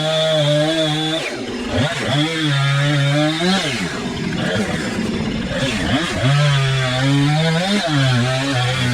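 Two-stroke chainsaw engine running loud, its pitch repeatedly rising and falling as the throttle is blipped.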